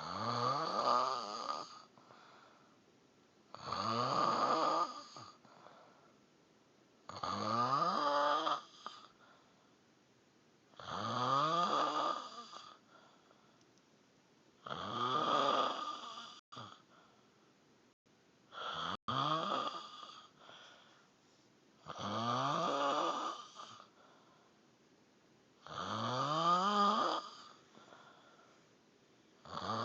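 A person snoring in a steady rhythm, eight snores about every four seconds. Each snore lasts a second or two and rises in pitch, with quiet breaths in between.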